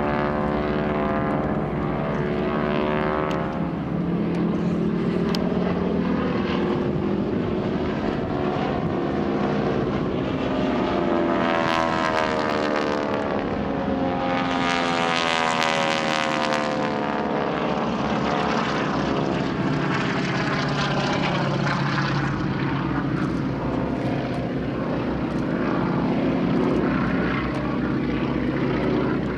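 Several Harvard trainers' Pratt & Whitney R-1340 nine-cylinder radial engines and propellers drone overhead, each pitch sliding up and down as the aircraft pass. The loudest, harshest pass comes about halfway through.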